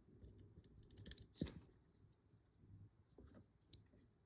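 Faint, scattered clicks and taps of small metal padlock parts being handled while the pins are taken out of the lock core.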